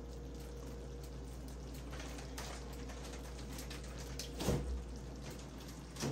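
Creamy pasta sauce simmering quietly in a skillet on an electric stove, a faint bubbling crackle over a low steady hum, with a soft bump about four and a half seconds in and another near the end.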